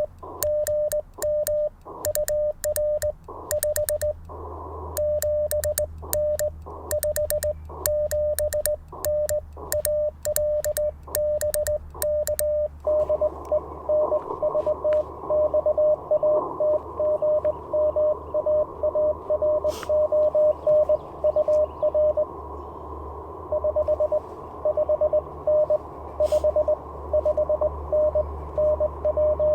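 Morse code at about 600 Hz from an Icom IC-705 transceiver. For the first dozen seconds the operator sends on a sideswiper (cootie) key: the keyed sidetone comes with a sharp click at each stroke. About 13 seconds in, the radio switches to receive, and another station's Morse comes back through band hiss.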